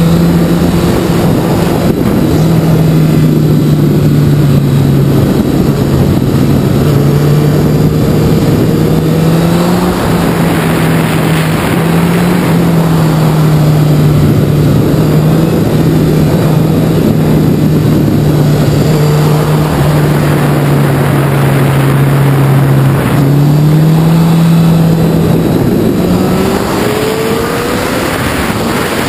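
Sport motorcycle engine running at road speed through bends, its note holding fairly steady but stepping up and down in pitch a few times and rising near the end, over a steady rush of wind.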